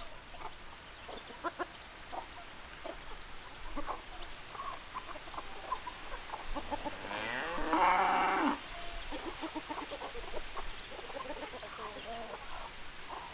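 Chickens clucking in short, scattered calls, with one loud, drawn-out call about seven seconds in that rises and then holds for a second and a half.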